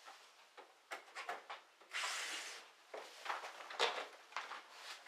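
Scattered knocks and bumps with short bursts of rustling as a person climbs in through a window and pushes past cloth curtains. The longest rustle comes about two seconds in, and the sharpest knock a little before four seconds.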